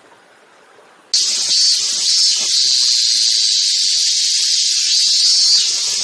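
Cicada singing: a loud, steady, high-pitched buzz that starts suddenly about a second in and holds without a break.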